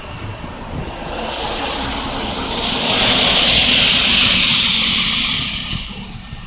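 Pickup truck driving past on a wet street, its tyres hissing through the water on the road. The hiss swells to a peak about three to four seconds in, then fades away.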